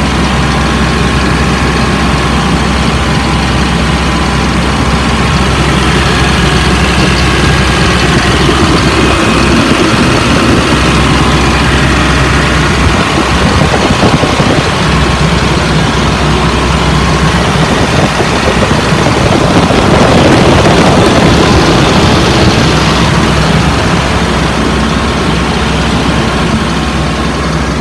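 2004 Blue Bird All American school bus engine running steadily at a high idle that it is stuck on. It gets a little louder about two-thirds of the way through.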